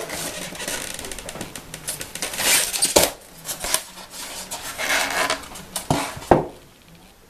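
Polystyrene foam packaging being handled: a foam tray lifted off another and set down, with scraping and rubbing of foam on foam and several sharp knocks, one about three seconds in and two close together near the end.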